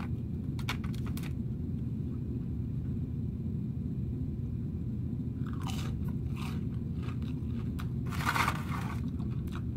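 Close-up crunching and chewing of a fried onion ring: crisp crunches about half a second in, again around six seconds, and loudest a little after eight seconds, over a steady low hum.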